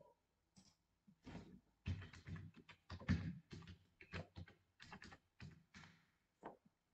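Typing on a computer keyboard: a quick, irregular run of keystrokes entering a login password, starting about half a second in and stopping shortly before the end.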